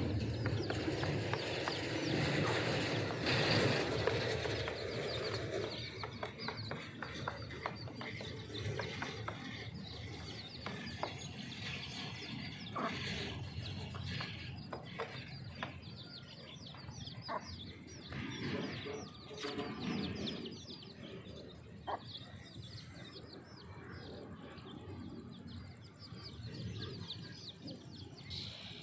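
Baby chicks peeping continually around a hen, many short high chirps overlapping, with scattered small clicks. Louder and fuller in the first few seconds.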